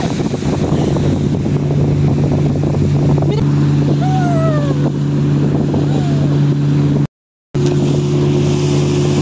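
Speedboat engine running at a steady cruising speed, an even hum over rushing water and wind noise, with a brief voice calling out about four seconds in. The sound cuts out for about half a second a little after seven seconds, then the engine hum resumes.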